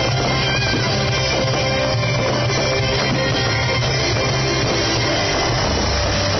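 Rock-style music with guitar and drums, playing steadily at a constant loud level.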